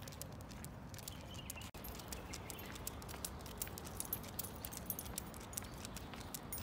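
A German shepherd walking on a leash: scattered light ticks and clicks from its claws on the paving and the jangling metal leash clip, over a low steady rumble.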